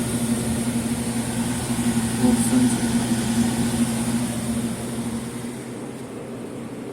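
A steady, low machine hum, like a motor or engine running, that fades out about five and a half seconds in.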